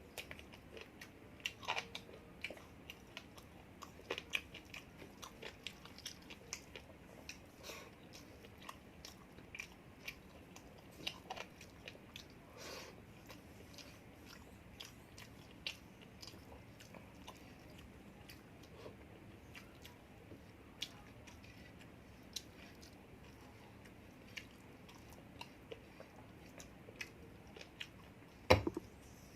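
Close-miked chewing and biting of food, with irregular small crunches and mouth clicks. A sharp knock near the end is the loudest sound.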